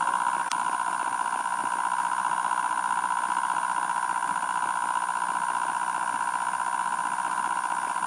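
Homemade pulse motor running at speed, its plastic rotor with neodymium magnets driven by a ferrite-core coil switched by a reed switch, giving a steady high hum. One short click about half a second in.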